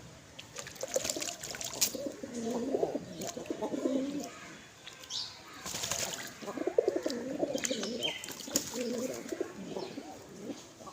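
Pigeons cooing over and over in low, wavering calls, with a few short higher chirps and sharp clicks mixed in.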